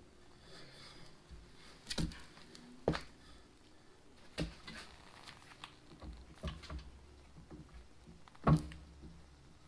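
Scattered knocks and taps as a tractor's hydraulic belly pump, sitting on a wooden block atop a floor jack, is shifted and worked into position by hand, with one sharper knock near the end.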